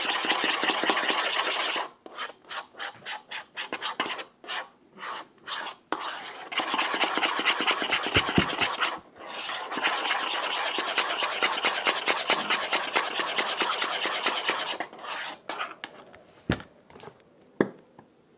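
Slime mixture being stirred and scraped with a spoon in a bowl: long spells of steady rubbing, broken by short choppy strokes between about two and six seconds in, thinning to a few scattered scrapes near the end.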